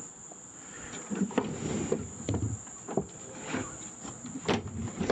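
Scattered knocks and clunks from a push lawn mower being handled and tipped over onto its side, with a steady high-pitched tone behind.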